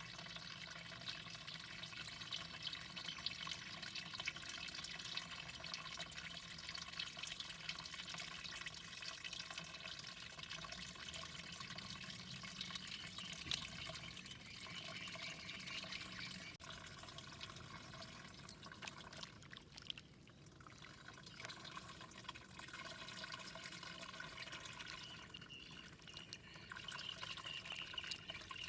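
Flowing water running and splashing steadily, with many small drips and trickles and a brief lull about two-thirds of the way through.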